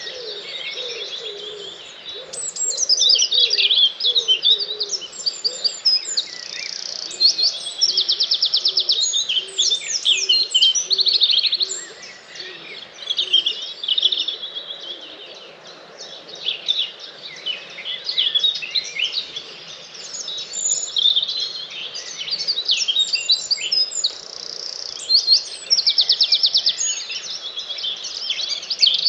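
Dawn chorus: many songbirds singing at once in dense, overlapping phrases with trills and rapid repeated notes. A low, repeated call sounds underneath for about the first ten seconds.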